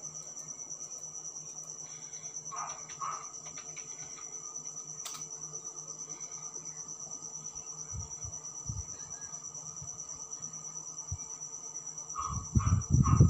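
A cricket trilling steadily and high-pitched over a low electrical hum. About 12 seconds in come a few louder low thumps.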